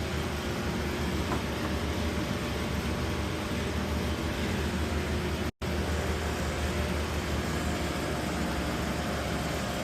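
Steady machine noise, a low hum under an even rush of air, broken by a sudden brief dropout a little over halfway through.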